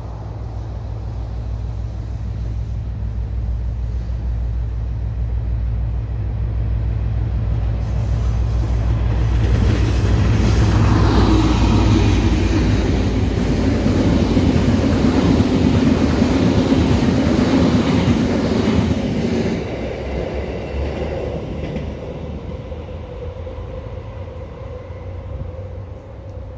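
A train passing: a low rumble that builds, is loudest between about ten and nineteen seconds, then fades away.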